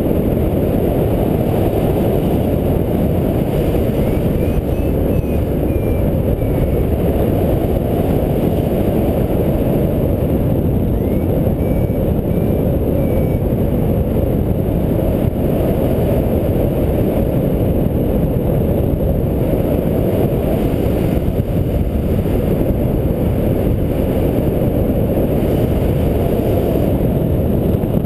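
Airflow of paraglider flight buffeting the camera's microphone: a loud, steady low rush of wind noise. Faint short high beeps sound twice in short runs, from the pilot's flight instruments.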